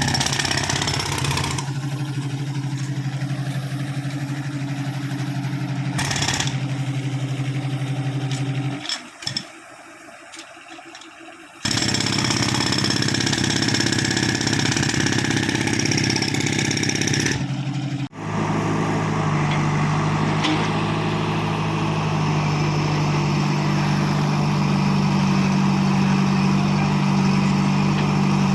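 Diesel engine of earth-excavation machinery running steadily, cut into several short shots. There is a quieter stretch of about three seconds around nine seconds in.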